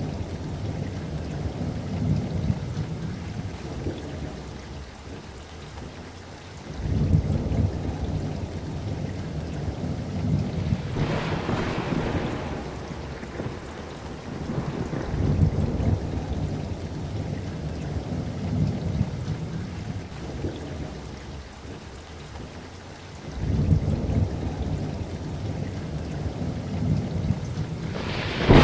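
Thunderstorm ambience: steady rain with low rolls of thunder that swell up every seven to eight seconds. A thunder peal reaching higher in pitch comes about eleven seconds in, and a louder one starts right at the end.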